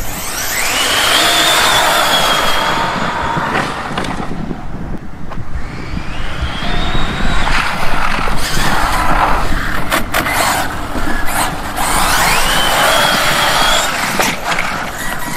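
ZD Racing EX07 1/7-scale electric RC supercar accelerating hard three times: a high motor whine climbs quickly in pitch and then holds, over tyre and drivetrain noise. The runs start right at the beginning, about six seconds in, and about twelve seconds in.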